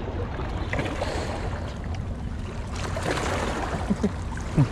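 Steady low rumble of wind buffeting the microphone, with water washing against the breakwater rocks.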